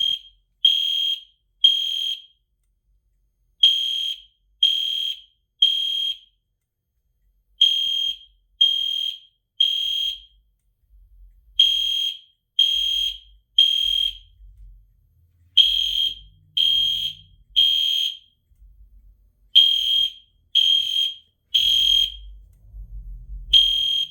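Two EST Genesis horn strobes sounding in sync in the temporal-three (code 3) evacuation pattern. They give three short, high electronic horn beeps about a second apart, and the group of three repeats about every four seconds.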